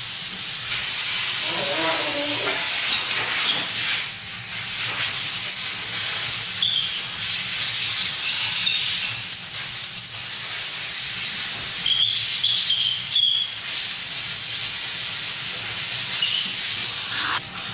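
Compressed-air blow gun hissing steadily as it blasts out the bolt holes, cracks and crevices of a bare engine block to clean and dry it, with short high whistles now and then as the air hits the holes and brief breaks when the trigger is let off.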